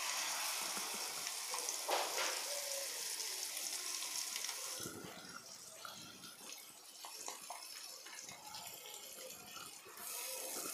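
Onion paste sizzling as it is dropped into hot oil with fried spice powders in a kadai: a steady hiss for the first five seconds that then dies down, with a knock about two seconds in, and the sizzle picks up again near the end as more paste goes in.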